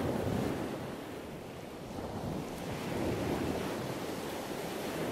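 Ocean surf: a steady wash of waves that swells and eases over a few seconds.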